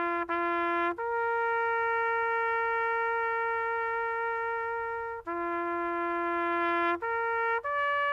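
Music: a slow line of long, steady trumpet-like notes, each held from a fraction of a second to about four seconds. It steps up about a second in to a long held note, drops back a little after five seconds, rises again around seven seconds, and climbs to a higher note near the end.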